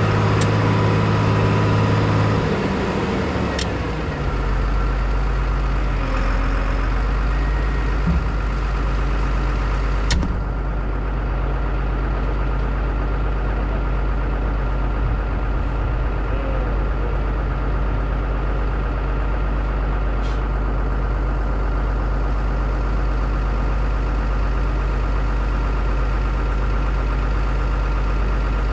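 1998 Bombardier BR-160 snowcat engine dropping from a higher speed to a steady idle in the first few seconds, then idling evenly, with a few light knocks.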